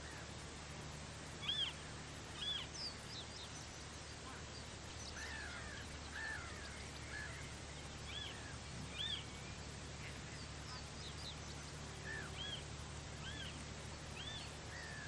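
Birds calling on an estuary shore: about a dozen short, arching cries scattered through, over a faint, steady low hum.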